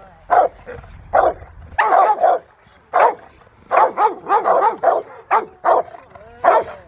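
Rottweiler barking hard and repeatedly, close to two barks a second with some in quick pairs, at a helper hidden in a blind: the bark-and-hold of protection training.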